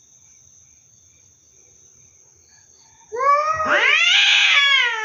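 A cat yowling once, long and loud, starting about three seconds in: a drawn-out caterwaul that rises and then slowly falls in pitch. It is the threatening yowl of a cat in a standoff with another cat.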